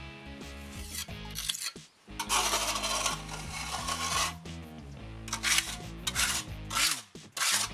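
A metal filling knife scraping and smoothing tinted stone render over a stone column, in several rasping strokes, with background music under it.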